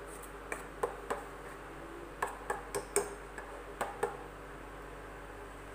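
A spoon clinking and tapping against a metal cooking pan about ten times as the masala paste is stirred, stopping about four seconds in.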